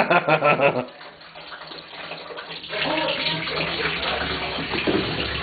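Shiner Bock beer pouring and splashing into a bathtub. The pour becomes a steady rush about a third of the way in, with voices over it.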